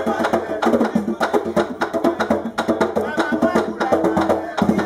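Danmyé music: a bèlè hand drum beaten in a fast, steady rhythm, with sharp wooden clicks cutting through it.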